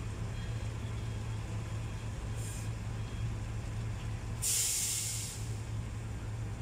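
Steady low hum of an idling truck diesel engine, with a short faint hiss about two and a half seconds in and a louder hiss of escaping air lasting about a second a little past the middle.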